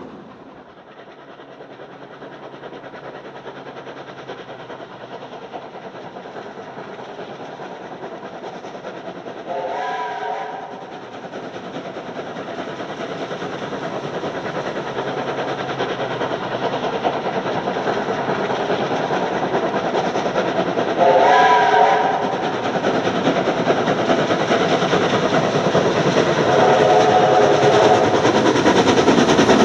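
Double-headed NSW steam locomotives 3526 and 3642, 4-6-0 passenger engines, approaching under steam, their exhaust and running noise growing steadily louder. A several-note steam whistle sounds three short blasts: about ten seconds in, about twenty-one seconds in (the loudest), and again near the end.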